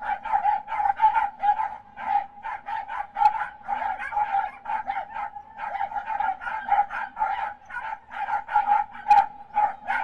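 Corgis barking and yapping excitedly, a rapid steady run of sharp barks at about four a second.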